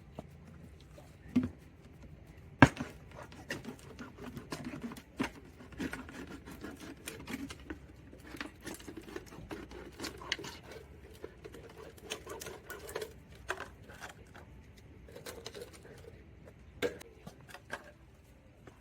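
Close-up handling noises: irregular scratching, rustling and small taps, with a sharp click about three seconds in. These fit hands at work on a container and a paint roller while cleaning bed liner out of it.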